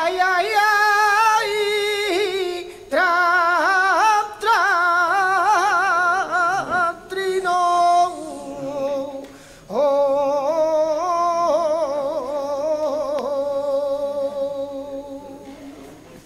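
Male flamenco singer singing tonás unaccompanied: long ornamented phrases with wavering pitch, broken by short breaths, the last one dying away near the end.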